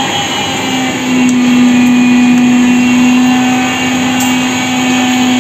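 A steady, loud buzzing tone from a standing Athens Metro Line 1 train at the platform with its doors open. It sets in at the start and holds one pitch throughout.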